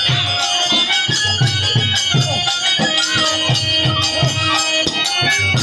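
Kirtan ensemble playing: a hand drum beating about twice a second under the constant clash and ring of small hand cymbals (kartal). A held tone joins about three seconds in.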